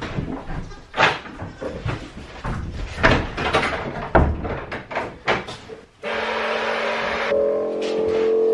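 Knocks and clatter of goat hooves on a wooden milking stand, then a goat milking machine's vacuum pump switched on about six seconds in, running steadily with a hum that comes in a second later and grows slightly louder.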